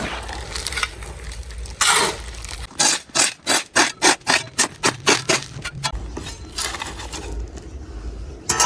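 Repeated scraping strokes of a hand tool: one longer stroke, then a quick run of short strokes at about four a second.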